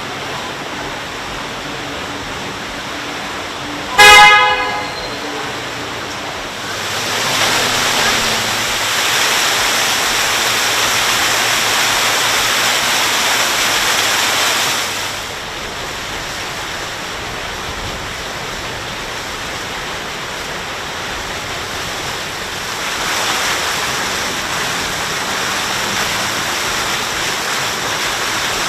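A horn sounds one short toot about four seconds in, over the steady rush of water and wind from a moving boat, which grows louder for several seconds after the toot and again near the end.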